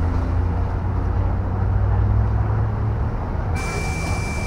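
KAMAZ electric bus heard from inside the passenger cabin while driving: a steady low rumble of tyres and running gear. About three and a half seconds in, a steady high-pitched tone starts and holds.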